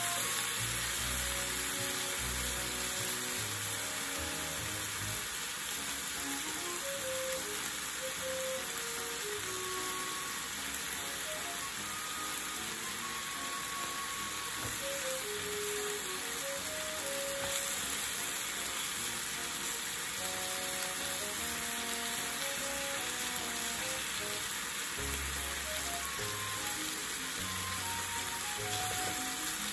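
Sliced pork and onion sizzling steadily in a frying pan as they are turned with chopsticks.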